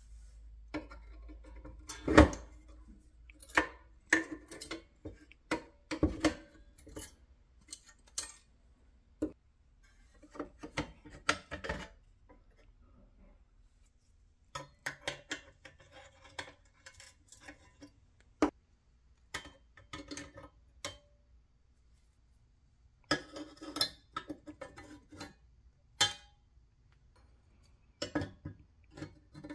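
Metal parts of a 1960s Duncan parking meter clinking, clicking and knocking as its housing is dismantled by hand with tools such as pliers, in irregular clusters with short pauses. The loudest knocks come about two and six seconds in.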